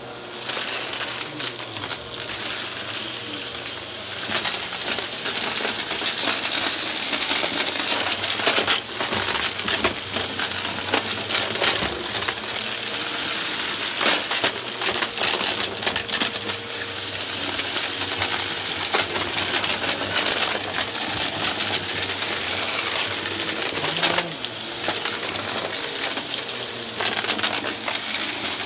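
Bagless upright vacuum cleaner running over carpet with its brushroll sucking up a patch of dry debris: a constant crunching, with grit rattling and clattering through the machine over the steady motor.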